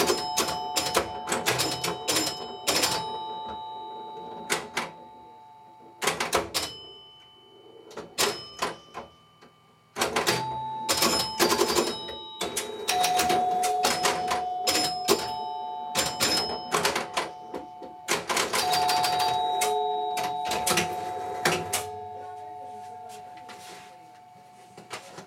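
Bally Little Joe electromechanical pinball machine in play: rapid bursts of clicking and clatter from its relays, switches and score reels. Its retrofitted door chimes ring two sustained notes that fade out, with a quieter lull about eight to ten seconds in.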